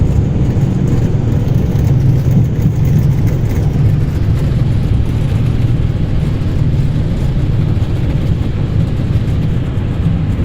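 Airbus A320 landing rollout heard in the cockpit: a steady, loud low rumble of the engines and the wheels on the runway as the airliner decelerates after touchdown, easing slightly near the end.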